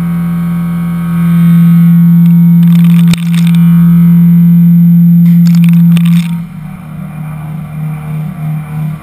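CNC mill cutting metal with an Iscar end mill on a Mastercam Dynamic Milling high-speed toolpath: a loud, steady tone from the cut. About six seconds in, the tone breaks into a regular pulsing, about three beats a second, as the cutter moves in and out of the material.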